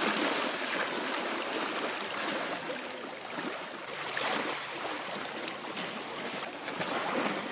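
Small lake waves lapping and washing over the rocks at the water's edge, a steady wash of water that swells and eases.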